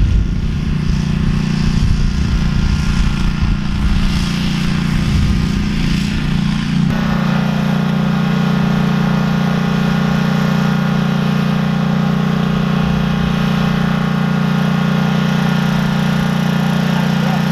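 Small gasoline engine running at a steady speed. For the first seven seconds wind gusts across the microphone. About seven seconds in, the sound cuts abruptly to a steadier, clearer engine note.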